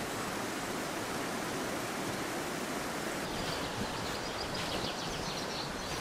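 Steady rushing of a small river flowing over rocks, with faint rapid bird chirping high above it in the second half.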